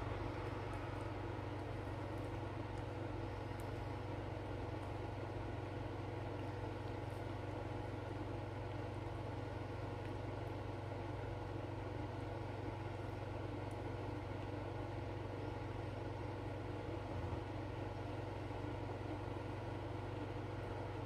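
Steady low mechanical hum of a running motor, even and unchanging, with a few constant tones in it.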